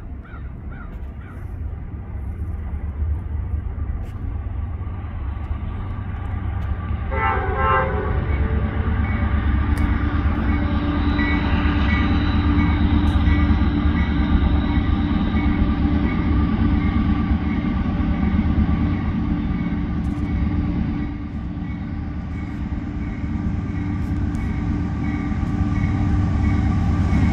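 Air horn of an approaching Norfolk Southern diesel locomotive sounding a multi-note chord, starting about seven seconds in and then held. Underneath is the steady rumble of the diesel engines and train, growing louder as it nears.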